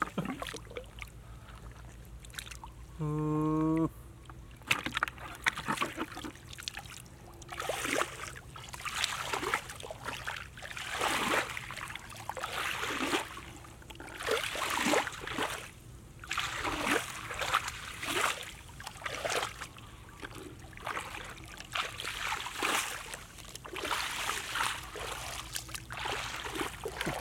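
Bare feet splashing and squelching through a shallow-flooded grassy field, a step every second or so, with water sloshing. About three seconds in comes a short, steady humming tone that lasts under a second.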